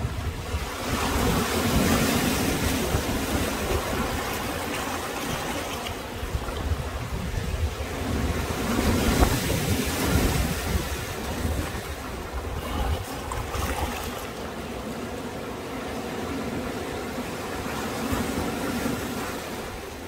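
Sea waves surging and washing in, swelling every several seconds, with wind rumbling on the microphone.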